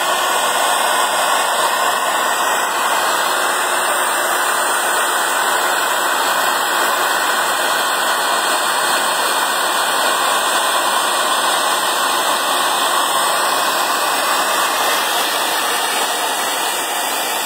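Steady, even rushing noise of machinery running, with no pitch or rhythm to it.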